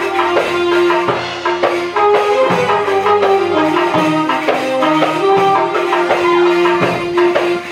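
Live Middle Eastern dance music: an electronic keyboard plays a melody of long held notes over a steady beat of hand-drum strokes.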